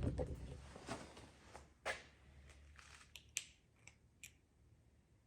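Faint, scattered clicks and small scrapes of a little hand pick probing inside a spark plug wire boot, working at a thin piece of rubber lodged there.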